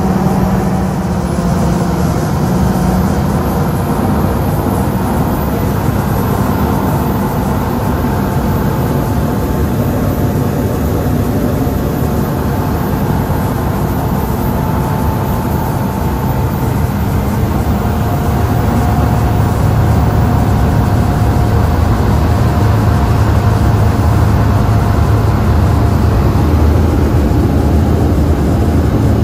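Cessna Caravan's single turboprop engine and propeller, heard from inside the cabin as a steady, loud drone while the aircraft rolls along the runway. It grows somewhat louder about two-thirds of the way through.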